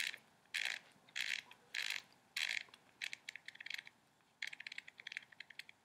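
The volume-setting button of an ErgoOne micropipette being turned clockwise by hand, its detents ratcheting in short runs of clicks, about one run every half second at first, then quicker strings of single clicks as the volume is dialled down. The soft clicking means the button is unlocked and the digits are stepping down.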